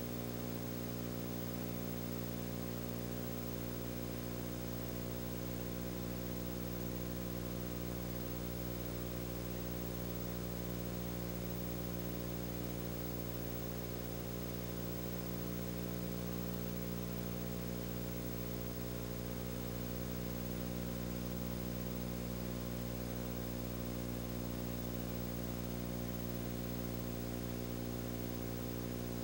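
A steady, unchanging hum made of several fixed low tones over a light hiss, with no separate events: the background noise that a transfer of silent home-movie film carries.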